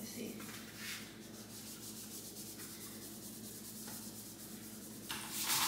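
Paint roller on an extension pole rolling wet paint onto a wall: a soft rubbing hiss that turns much louder about five seconds in.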